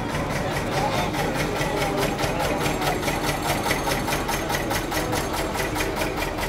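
Slow-running diesel engine of a historic working narrowboat passing close by, with a steady, even beat of about four or five pulses a second.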